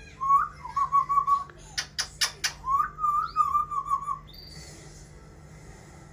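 Pet parrot whistling two warbling phrases, the second about three seconds in, with a quick run of sharp clicks between them.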